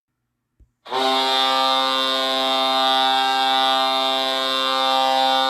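Ice hockey goal horn of the Vegas Golden Knights sounding one long, steady blast that starts about a second in.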